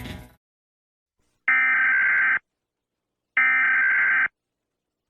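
Two one-second bursts of Emergency Alert System SAME header data tones, about a second apart and marking the start of an emergency alert. Music fades out just before them.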